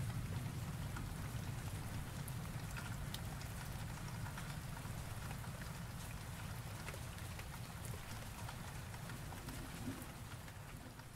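Rain with a low rumble of thunder that slowly dies away.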